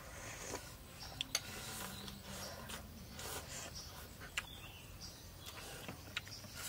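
Eating sounds: noodles being slurped and chewed, with a few sharp clicks of chopsticks and a metal spoon against ceramic bowls.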